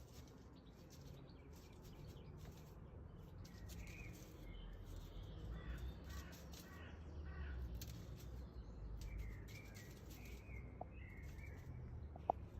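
Birds chirping in short, scattered calls, with a quick run of repeated notes midway, over a low steady rumble. A couple of sharp clicks near the end.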